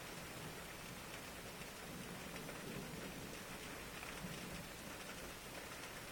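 Steady light rain falling, a soft even hiss with scattered faint drop ticks.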